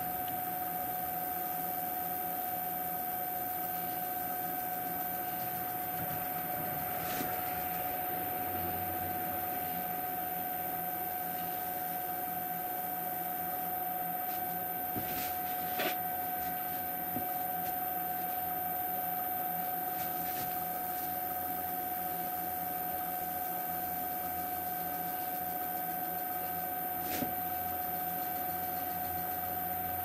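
Wood lathe running steadily at slow speed, a constant high whine, while a paper towel rubs abrasive paste off the spinning bowl. A lower hum joins about eight seconds in, with a few faint clicks.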